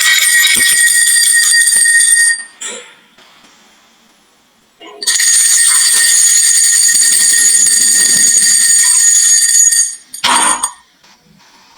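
Loud, steady high-pitched electronic tones held at fixed pitches for about two seconds, then, after a pause, for about five seconds more, followed by a short knock.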